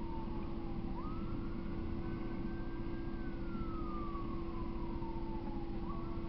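A faint siren wailing: its pitch jumps up about a second in, climbs slowly, then slides slowly down before jumping up again near the end. Under it runs a steady hum and hiss.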